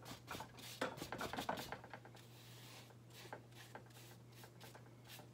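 Paintbrush scrubbing thick oil paint onto a stretched canvas: a quick run of faint brushing strokes that thins out after about two seconds.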